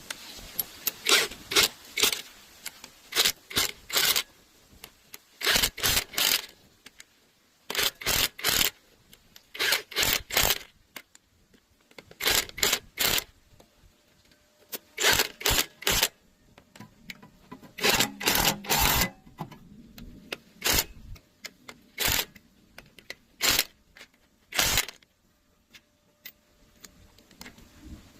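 Irregular short scraping strokes from hand work, often in quick runs of two to four with pauses between.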